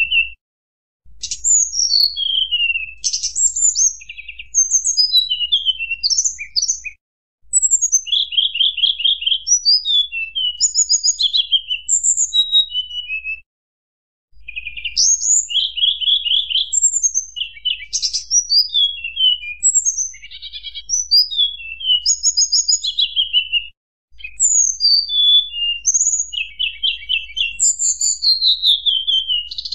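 Tledekan gunung singing: rapid high whistled phrases with falling slurs and short trills, almost without pause. The song is a recording that drops to dead silence briefly about four times.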